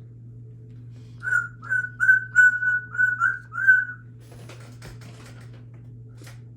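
Congo African grey parrot whistling a quick run of about eight short, even notes at one pitch, a little over a second in, followed by a few faint clicks.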